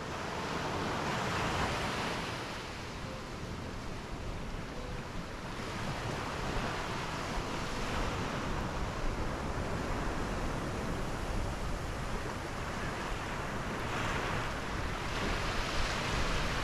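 Ocean surf: a steady wash of waves rising and falling in slow swells.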